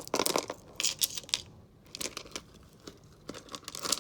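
Stone bead necklace being handled, the beads clicking and rattling against each other in irregular short bursts, the loudest in the first second.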